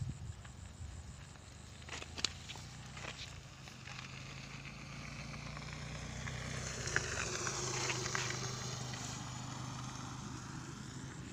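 A motor vehicle passing on the road, growing louder to a peak about eight seconds in and then fading away, over a steady low engine hum. A few light knocks come in the first few seconds.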